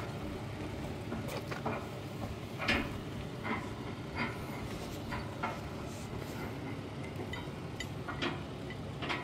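Irregular metallic clinks and knocks of recovery hardware as a tow strap is fastened to a pickup truck's front recovery point. There are about ten short clicks at uneven intervals over a low, steady rumble.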